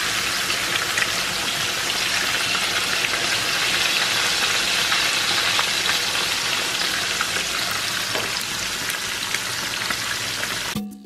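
Whole red snapper deep-frying in hot oil in a pan: a steady, dense sizzle with fine crackling from the bubbling oil. It cuts off suddenly at the very end.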